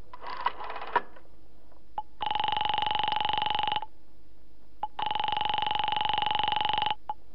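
Telephone ringing tone heard through the receiver: two long rings with a pause between, the call ringing unanswered at the far end. Telephone dial clicking comes in the first second, and a small click comes before each ring.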